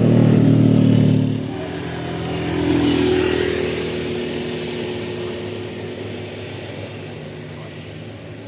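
Road traffic passing close by. A loud engine runs for the first second and a half, then another vehicle swells past about three seconds in and fades away.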